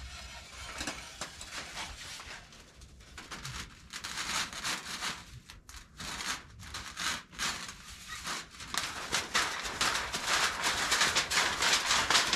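Footsteps crunching in snow and the rustling and knocking of camping gear being handled, in irregular bursts that grow louder toward the end.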